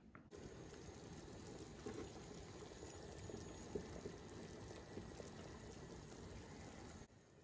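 Broth boiling hard in a large metal pot: a steady bubbling with small pops. It starts abruptly just after the beginning and cuts off abruptly about a second before the end.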